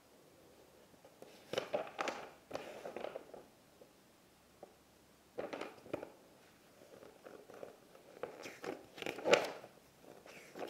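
Cardboard toy packaging and a paper leaflet rustling and crinkling as they are handled and unfolded, in several short spells of rustles and light clicks.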